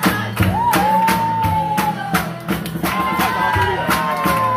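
Live music with a held, slowly gliding melody line over a steady bass, and a sharp clacking beat about three times a second from bamboo poles struck together for a bamboo-pole dance.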